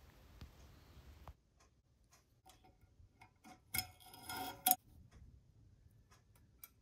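Small metallic clicks and taps from steel split valve collets and long-nose pliers against a compressed valve spring retainer and valve stem. A short cluster of clicking and scraping comes about four seconds in and ends in a sharp tick.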